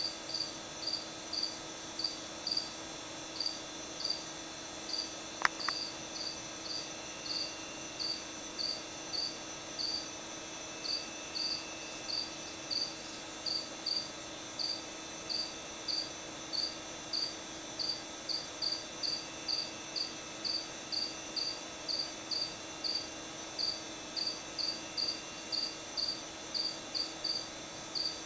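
A cricket chirping steadily in short, high chirps, a little under two a second, with a single sharp click about five and a half seconds in.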